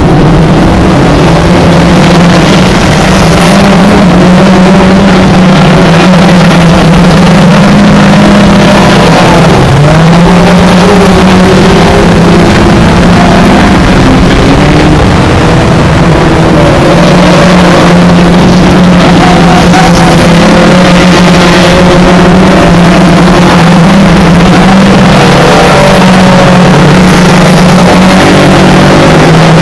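A pack of small hatchback hot rod race cars racing together. Several engines run hard at once, loud, their pitches rising and falling as the cars accelerate and ease off through the bends.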